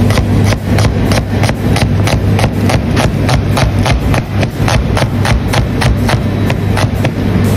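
Cleaver slicing red onions on a plastic cutting board: quick, even knocks of the blade on the board, about three to four a second, over a steady low hum.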